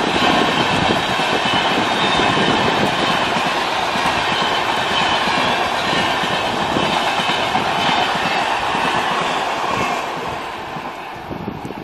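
Express train coaches running past close by at speed, their wheels rumbling and clattering along the track. The sound dies down near the end.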